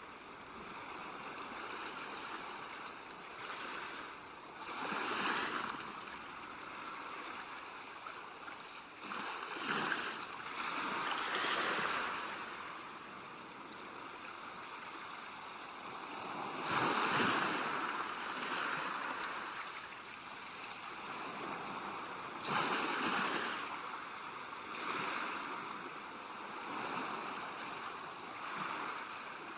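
Ocean waves breaking on a shore: a steady wash of surf with louder swells every few seconds as each wave crashes, the biggest about two-thirds of the way through.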